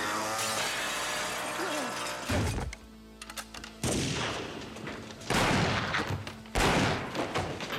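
Four gunshots about a second and a half apart, each loud and trailing off, over a tense film score.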